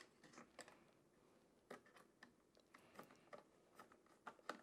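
Faint, irregular light clicks and ticks of a small precision screwdriver turning the screws that hold down a motherboard's M.2 heatsink cover.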